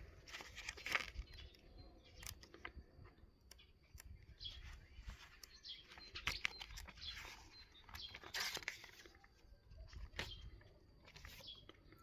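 Paper pages of an instruction manual being turned and rustled, a soft crinkling swish every second or two with a few sharper crackles.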